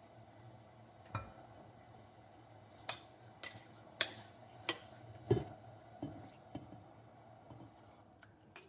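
Kitchenware handled on a counter: a string of irregular sharp clinks and knocks of glass and dishes, over a low steady hum.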